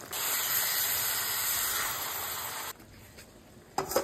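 Fish masala sizzling in oil in a pan: a loud, even hiss that cuts off suddenly a little under three seconds in. Near the end come two short metallic knocks as a pan is set down on the gas stove.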